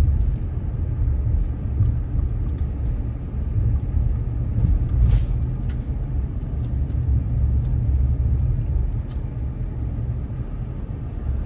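Car being driven along a narrow paved road, heard from inside the cabin: a steady low rumble of road and engine noise, with scattered light ticks and clicks and one slightly stronger click about five seconds in.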